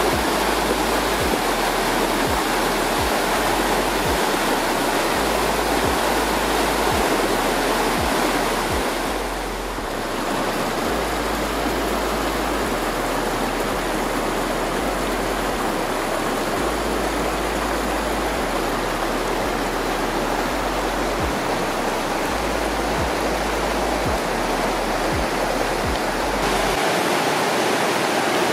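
Linville River rushing over rocky rapids below the falls: a steady, loud wash of moving water, dipping briefly about ten seconds in.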